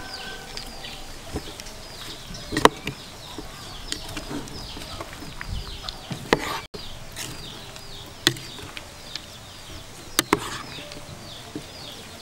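Metal spoon and wooden chopsticks tossing a salad in a bowl, with a few sharp clicks of the utensils against the bowl, over steady chirping of small birds.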